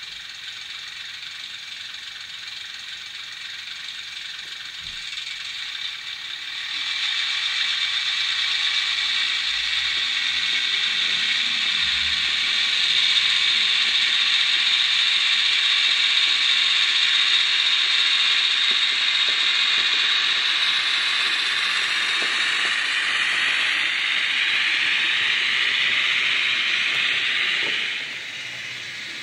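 Hornby Sentinel model diesel shunter with a LokSound 5 sound decoder running with its wagons: a steady mechanical whirring hiss. It gets louder about seven seconds in and cuts off suddenly near the end.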